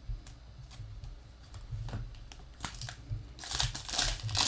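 Foil wrapper of a trading-card pack crinkling as it is torn open by hand. A few light crackles come first, then dense crinkling for the last second or so, loudest at the end.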